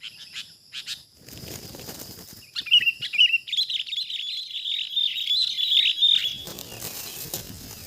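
Sooty-headed bulbul giving short chirps, then a rapid chattering call lasting about three and a half seconds, with bursts of rustling and wing flapping before and after it.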